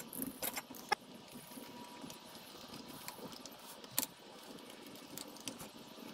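Small metal clicks and taps as carburetor top-cover screws are picked out of a metal parts tray and set into a Weber IDF-type carburetor: a handful of sharp clicks, the loudest about four seconds in.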